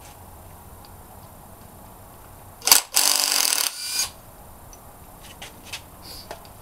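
A click, then a handheld power tool, such as a drill/driver or ratchet, running for about a second, as in spinning out a bolt during engine teardown; a few light metallic ticks follow.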